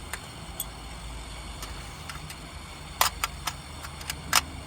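Hand tools clinking on metal while working on the header bolts: a few sharp clicks and clanks, the loudest about three seconds in and again near the end, over a low steady hum.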